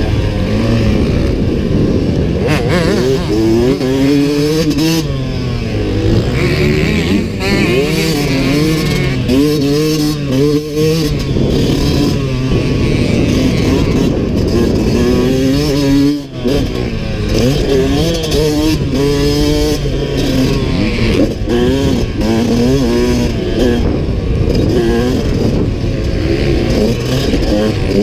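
Yamaha YZ125X's 125 cc two-stroke single-cylinder engine under way, its pitch climbing and falling again and again as the throttle is opened and closed. The sound dips sharply for a moment about sixteen seconds in.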